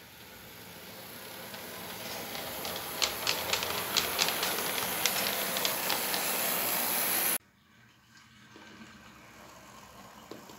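A 1:43½-scale model tram running along its track toward the microphone: a hissing run that grows louder, with a run of sharp clicks as its wheels pass over rail joints and points. It cuts off suddenly about seven seconds in, leaving a faint steady background.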